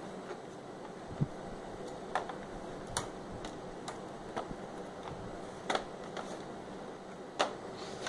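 About seven scattered light clicks and taps, with a duller knock about a second in, from small plastic and metal parts being handled during Dell Vostro 1550 laptop disassembly. A steady low hiss runs underneath.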